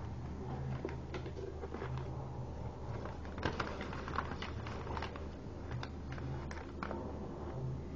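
A sheet of origami paper being folded and creased by hand: irregular crackles and clicks of the paper, busiest in the second half, over a steady low hum.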